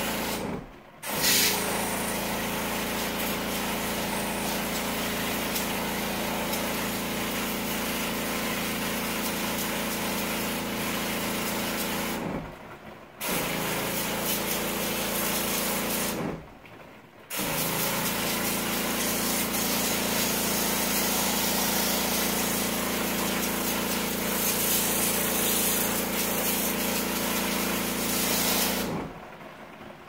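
Electric pressure-washer pump running with the hiss of water spraying into a mini-split heat pump's indoor fan wheel and coil. The sound comes in three long runs and stops briefly about 12 and 16 seconds in, then cuts off near the end.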